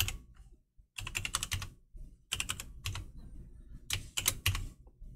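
Typing on a computer keyboard: four short runs of quick keystroke clicks with brief pauses between them.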